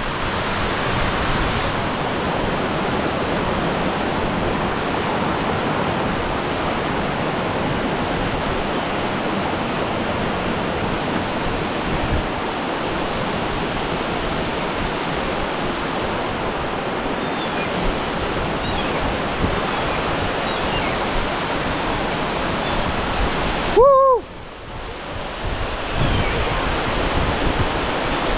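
Rushing white water of a rocky forest stream cascading over boulders, a steady loud rush. About four seconds before the end there is a short pitched call, and the water noise briefly drops.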